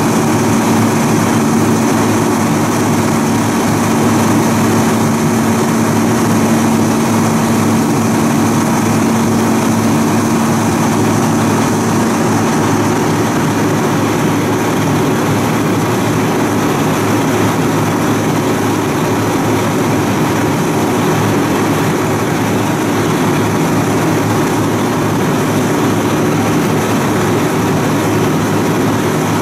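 Fire truck's diesel engine idling steadily close by. A steady hum in it stops about twelve seconds in.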